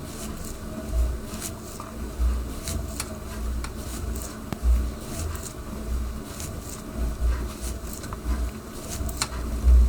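Stationary exercise bike being pedalled steadily: a low thump comes roughly once or twice a second, unevenly spaced, over a faint steady mechanical hum, with light clicks.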